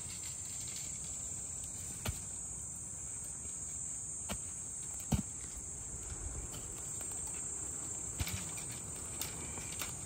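Steady high-pitched chorus of insects, broken by about five sharp clicks or knocks scattered through it.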